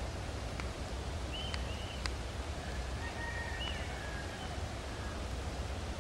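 Steady outdoor background noise with a low rumble, crossed by a few short bird chirps in the first half and a few faint sharp clicks.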